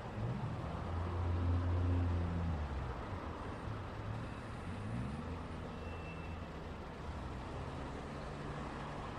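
Road traffic: vehicle engines running under a steady tyre and road hum. A heavy low engine drone is loudest about two seconds in, and engine notes rise in pitch as vehicles accelerate at the start and again about five seconds in.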